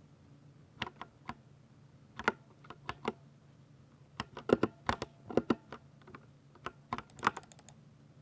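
Typing on a Ducky 60% mechanical keyboard with silver linear switches: irregular keystrokes, sparse at first, then in quicker runs in the middle and a fast flurry near the end.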